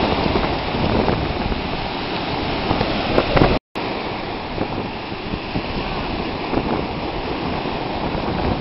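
Ocean surf washing on the shore, with wind buffeting the microphone. The sound cuts out completely for a moment about halfway through.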